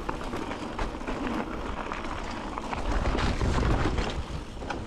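A hiker's footsteps scuffing and crunching on a rocky trail, with wind rumbling on the microphone, strongest about three to four seconds in.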